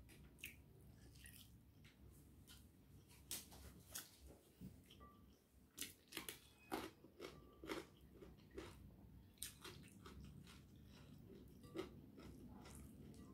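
Faint, close-up chewing of a mouthful of crispy fried shallots, with irregular sharp crunches.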